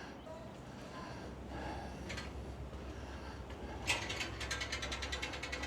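A sharp mechanical click about four seconds in, followed by a fast, even run of ratchet-like clicks, over a low steady hum.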